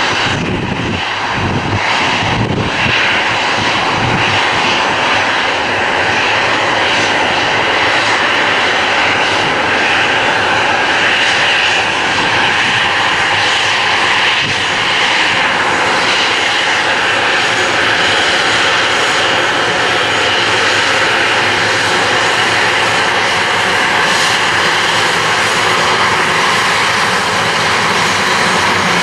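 Jet engines of an Airbus A321 running at low taxi power as the airliner taxis past, a steady noise with a faint whine held throughout.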